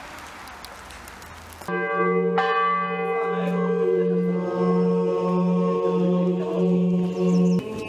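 Church bells ringing: a cluster of ringing tones over a low hum that pulses about twice a second. It comes in suddenly about two seconds in, after a steady hiss, and cuts off abruptly near the end.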